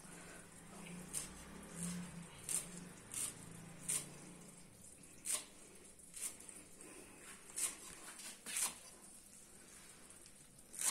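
Kitchen knife chopping fresh coriander directly on a marble countertop: irregular sharp taps of the blade on the stone, roughly one a second.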